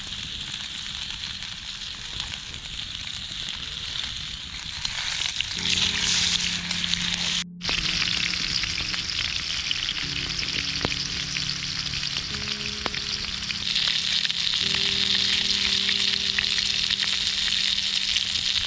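Marinated pork loin steaks frying in a pan over a campfire: a steady sizzling hiss, with soft background music of held notes underneath. The sound cuts out for a moment about seven and a half seconds in.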